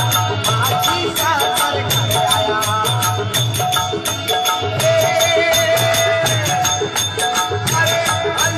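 Desi Rajasthani bhajan: a man sings over manjira (small brass hand cymbals) clinking rapidly with a steady ring, and a low pulsing beat underneath.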